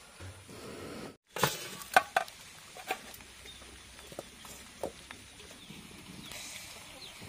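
Scattered sharp clinks and knocks of a steel kadai being set down and shifted on a clay wood-fired stove, over a faint steady hiss.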